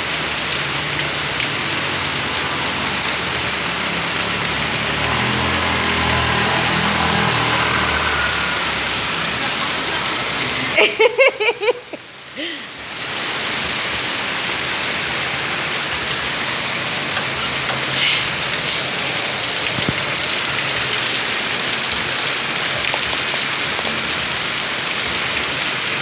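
Heavy rain pouring down steadily, a dense continuous hiss. About eleven seconds in, the rain sound dips for a moment under a short burst of pitched, voice-like sounds.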